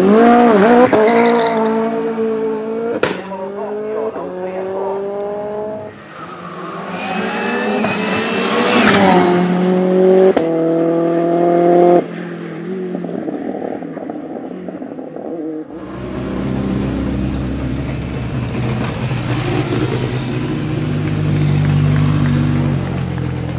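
Turbocharged 2.0 TFSI four-cylinder of a 600 hp VW Golf Mk2 hillclimb car accelerating hard, its revs climbing in several pulls through the gears, with a sharp crack about three seconds in. In the last third the engine runs at low revs, lower and steadier.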